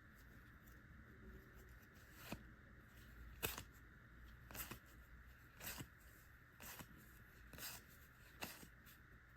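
Pokémon trading cards from a freshly opened booster pack being slid off the stack one at a time, a faint swish about once a second.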